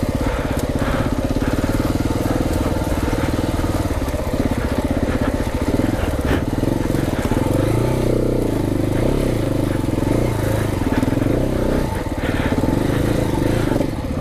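KTM 690 Enduro R's single-cylinder engine running at moderate revs on a rough trail, the revs rising and falling repeatedly in the middle as the throttle is worked. There are a few sharp knocks along the way.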